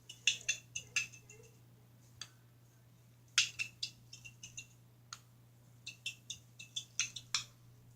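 Fidget stick clattering on a hard surface: three bursts of small, sharp clinking taps with a short bright ring.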